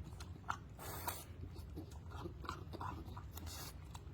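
Bulldog puppy licking at a cheeseburger: scattered short, wet mouth smacks and clicks, irregular and fairly faint, with a couple of brief breathy bursts.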